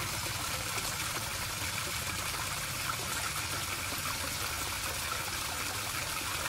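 Water pouring steadily out of a culvert mouth and splashing into the shallow pool below.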